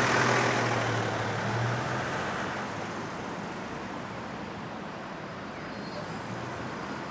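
City street traffic noise: a motor vehicle's engine drone is loudest at the start and fades away over the first few seconds, leaving a steady background of traffic.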